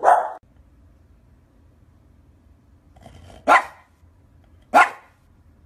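Maltese dog barking: one sharp bark at the start, then two more after a pause of about three seconds.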